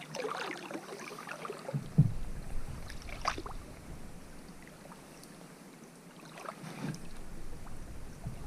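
Canoe paddle strokes in calm water, with water dripping and swirling around the hull. Two sharp knocks come about two and three seconds in.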